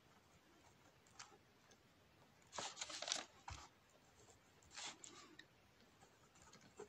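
Pen writing on paper: faint scratchy strokes in a few short bursts, the loudest cluster a little under three seconds in.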